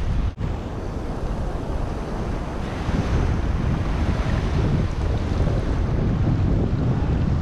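Wind rumbling on the microphone over shallow surf washing across the sand. There is a short break in the sound about a third of a second in.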